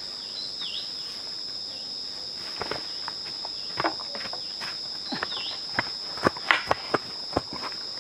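Steady high-pitched insect drone, with irregular footsteps that come more often in the second half.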